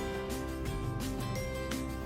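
Background music: a steady beat with pitched instrumental notes changing in time with it.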